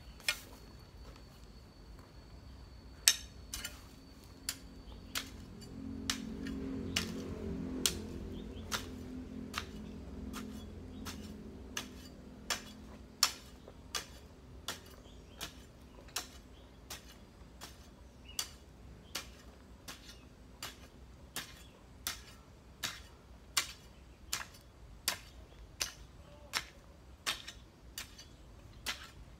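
A garden hoe chopping into dry soil in a steady rhythm, about one and a half strikes a second, each a sharp knock. A low hum swells and fades between about six and eleven seconds in.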